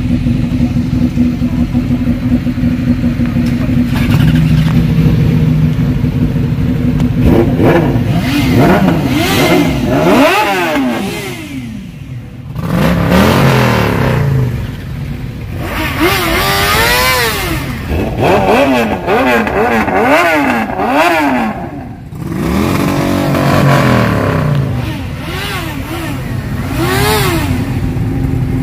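Sport motorcycle engines idling, with riders blipping the throttles again and again so the revs rise and fall in quick surges. There are brief lulls about a third and three-quarters of the way in.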